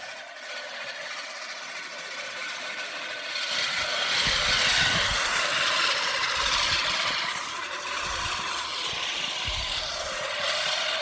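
Lawn mower running with a steady whir. It gets louder about three and a half seconds in, with a few low thuds under it.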